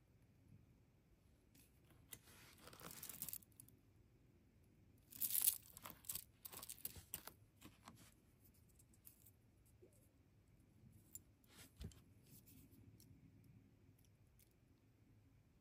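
Faint handling sounds of beading work with pliers and metal findings: a soft rustle about two seconds in, then a cluster of small clicks and scrapes, and a few scattered clicks near the end.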